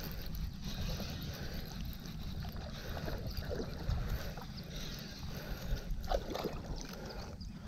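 Baitcasting reel being cranked to bring in a hooked small fish, with a steady low rumble of wind and handling noise on the camera underneath.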